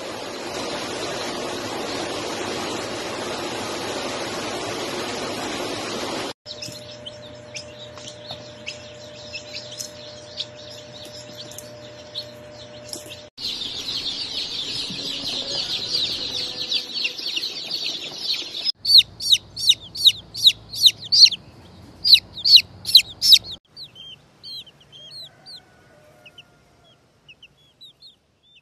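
A steady rushing noise for the first six seconds, then young chicken chicks peeping: a few scattered peeps, then a crowded brood peeping together. After that comes a run of loud, quick peeps, each a short falling note at about four a second, which give way to fainter peeps near the end.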